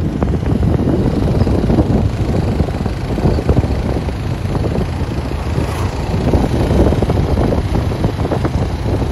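Motorcycle riding along at road speed, its engine and road noise mixed with steady wind noise on the microphone.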